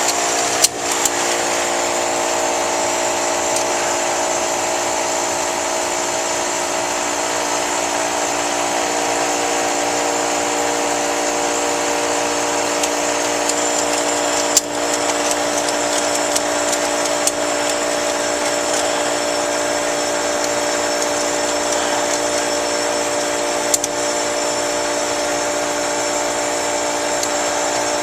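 Air-conditioner condensing unit running steadily, its compressor and fan motor humming over a hiss, while it pumps the refrigerant down into the condenser. A few sharp clicks sound over it: one just after the start, one about halfway and one near the end.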